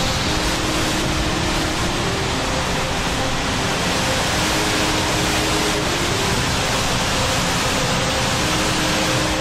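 Hurricane-force wind and driving rain, a loud, steady rush of noise blasting across the microphone, with faint held musical tones underneath.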